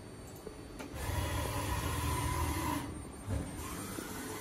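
Banglemaster B12 CNC jewellery machine starting its run about a second in: a steady low mechanical hum with hiss. It eases to a slightly lower level about three seconds in.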